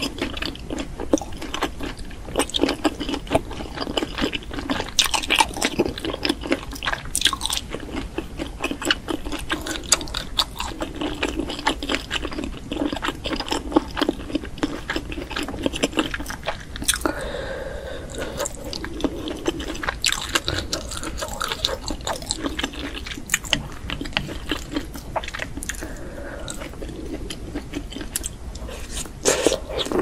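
A person chewing and biting enoki mushrooms in spicy chilli sauce, close to the microphone: a steady, dense run of crunches and mouth clicks.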